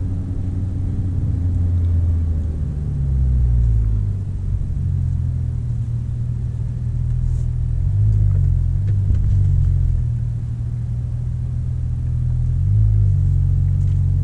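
Porsche 911 Turbo S twin-turbo flat-six running at low, fairly steady revs, heard from inside the cabin as the car drives slowly, its drone shifting slightly in pitch a few times.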